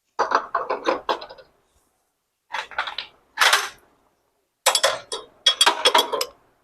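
Metal tools and engine parts clinking and clattering in four short bursts of quick clicks, the sound of hand work on a motorcycle engine during a timing chain replacement.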